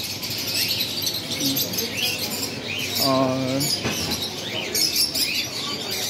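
A dense chorus of many caged small birds, such as budgerigars, chirping and chattering continuously in high, short calls.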